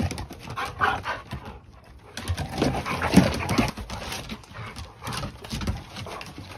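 Two dogs play-fighting, with irregular growls and rough vocal noises and the scuffle of paws on a wooden deck.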